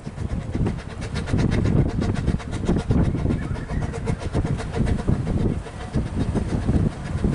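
Narrow-gauge steam locomotive working toward the listener with its train, its exhaust chuffing in a quick, even beat over a steady low rumble.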